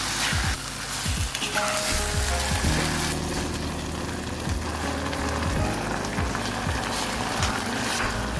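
Diced zucchini and onion with soybean paste and chili paste sizzling as they are stir-fried in perilla oil in an earthenware pot, with a spoon stirring and knocking against the pot. Background music plays along.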